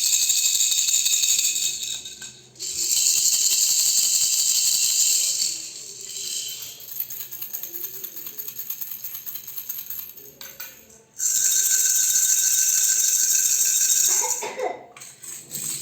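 Toy baby rattles shaken in three loud stretches of steady, bright rattling, with softer, lighter rattling between the second and third.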